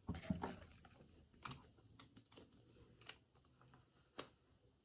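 Faint, scattered clicks and taps as a Nucleus 7 cochlear implant sound processor and its coil are handled and pressed into a hard clamshell storage case.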